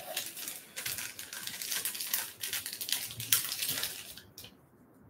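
Trading cards being handled: a dense papery rustle with many sharp clicks, stopping about four seconds in.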